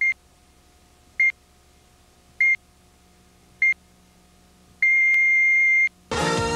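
Broadcast-style countdown pips, one high steady tone: four short beeps about 1.2 seconds apart, then one long beep of about a second, marking the 'top' of a five-second countdown. Guitar rock music comes in just after the long beep.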